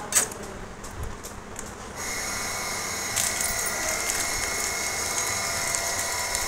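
A couple of sharp clicks, then about two seconds in a steady machine whine starts and keeps running.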